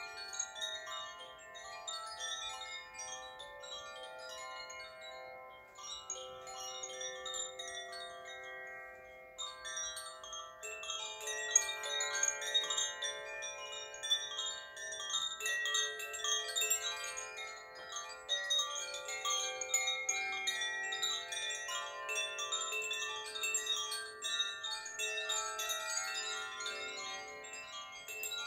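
Handheld tube chimes swung by their cords, tinkling on without a break with many overlapping ringing notes. They grow louder about a third of the way in.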